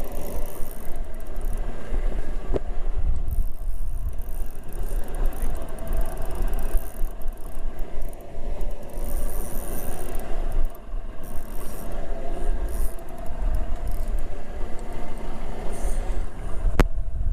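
Steady rumbling noise aboard a small fishing boat at sea, with a short click near the end.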